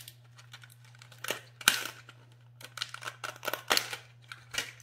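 Sharp clicks and crackles of a clear plastic press-on nail case being handled as the nails are taken out, the loudest click about a second and a half in and a quick run of them near the middle.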